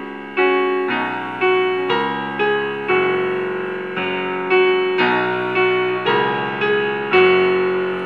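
Yamaha P-120 digital piano played in its piano voice: a slow run of chords, struck about twice a second, each left to ring and fade until the next.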